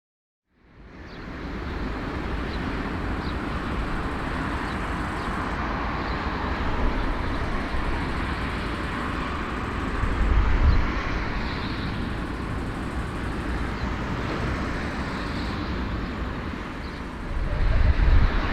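Steady vehicle noise, a low rumble with a hiss over it, fading in about half a second in and growing louder near the end.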